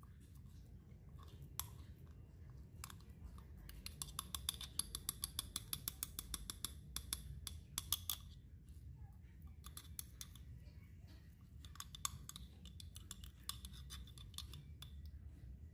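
A spoon stirring thick chili paste in a glass jar, tapping and clicking against the glass in quick runs of about five clicks a second, with pauses between runs.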